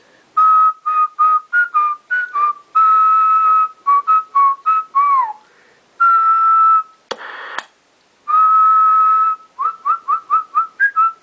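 A person whistling into a CB radio microphone as a transmit test: short notes and longer held ones, one falling away near the middle. Around seven seconds there are two clicks with a brief burst of static between them, and a run of quick rising chirps near the end.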